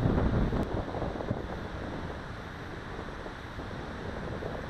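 Wind buffeting the Mobius action camera's microphone on a moving bicycle, a low rushing that is strongest in the first second and then eases to a steadier level.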